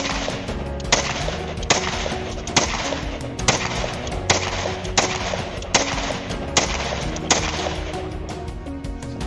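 Self-loading rifle fired semi-automatically: about ten shots at a steady pace, a little faster than one a second, each with a short echo, stopping about three-quarters of the way through. Background music plays underneath.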